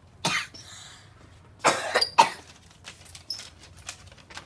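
A person coughing: one cough, then a quick run of three coughs about a second and a half later, followed by faint light clicks and rustles.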